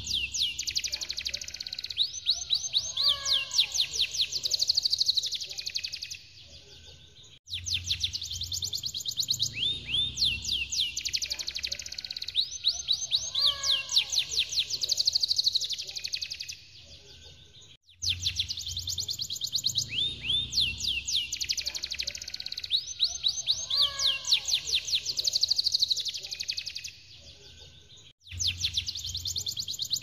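Domestic canary singing long, rapid rolling trills and whistled phrases. The same passage of song, with a short lull, repeats three times.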